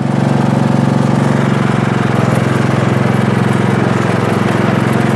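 Craftsman T100 riding lawn tractor's engine running steadily as the tractor drives along with the mower blades disengaged.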